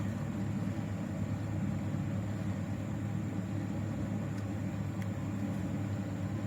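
Steady low background hum and rumble with a faint high whine above it, unchanging throughout.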